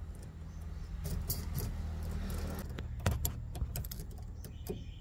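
Small metal clicks and light jingling from a bonnet-lift spring's mounting bolt being turned by hand, its ring and bracket rattling against the metal mount. A low steady hum runs underneath.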